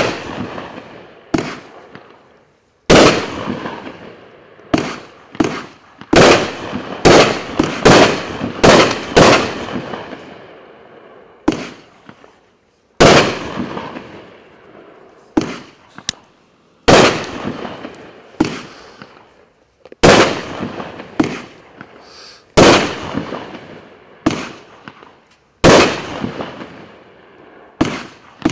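Happy Family Fireworks JL2139TS consumer firework cake firing a string of aerial shots: about two dozen sharp bangs at uneven intervals, each trailing off in an echo. The shots come quickly one after another in the first ten seconds, with short lulls later.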